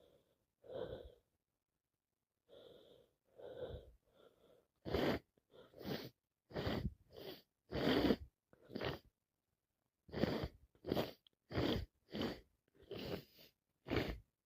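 A person sneezing over and over. A few soft breaths come first, then from about five seconds a rapid run of short, sharp sneezes, roughly two a second, broken by one short pause.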